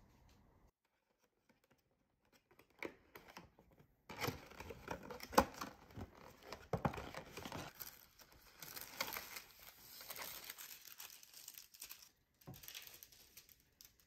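Paperboard donut boxes being opened by hand: card flaps pulled open and the paper sheets inside rustling and crinkling, with sharp snaps of card. A few light taps come first, then several seconds of steady handling noise, and a short last burst near the end.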